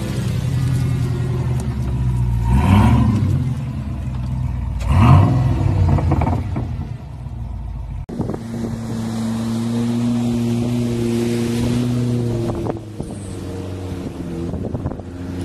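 A mud-covered 4x4 SUV's engine revving hard, rising and falling twice as its tyres spin through mud. After a cut about eight seconds in, a steadier engine drone with a wash of water as a vehicle drives along a flooded road.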